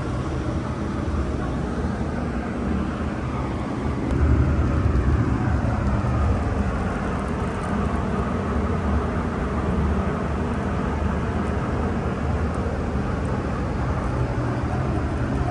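Steady low rumble of a paint spray booth's ventilation fans and moving air, swelling a little about four seconds in.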